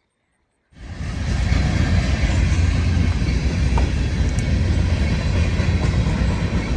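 A train passing close by: a loud, steady rumble of the wheels and cars on the rails, starting abruptly under a second in.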